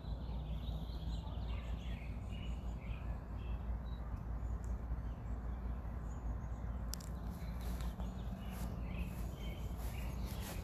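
Outdoor yard ambience: a steady low rumble with faint bird chirps through the first few seconds, and a few faint clicks in the last few seconds.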